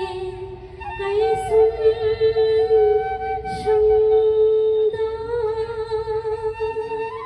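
A woman singing a slow devotional prayer song into a microphone, holding long notes, with a slight waver in her voice on a held note about five seconds in.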